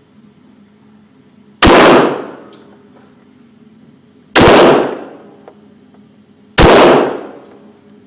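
Three handgun shots at an indoor shooting range, about two to three seconds apart, each loud crack followed by a short echoing tail.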